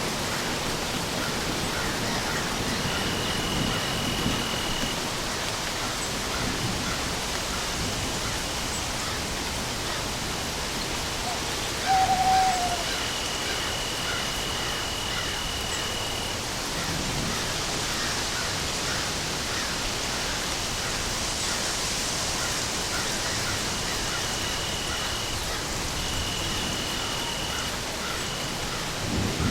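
Steady rain falling, with a single short call about twelve seconds in and a thin, high steady tone that comes and goes several times.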